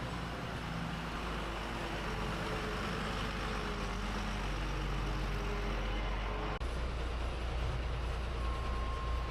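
Truck engine running with road noise, a steady low rumble that jumps abruptly louder about two-thirds of the way through.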